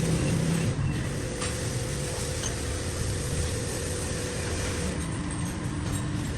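Steady low mechanical rumble with a faint steady hum and a few light clinks.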